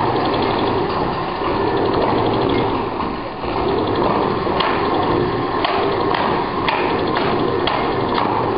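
Many sewing machines running together as an ensemble, a dense mechanical clatter. From about halfway through, sharp knocks come roughly once a second over it.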